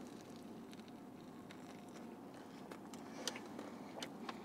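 Quiet room tone with a few faint clicks and rustles as a roast pork sandwich is handled and bitten into.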